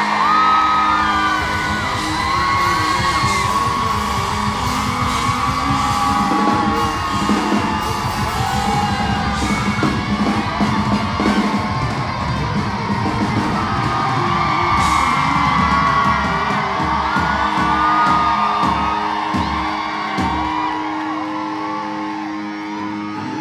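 Live rock band playing with the audience yelling and whooping along. Near the end the drums and low end stop and a held chord rings on as the song winds down.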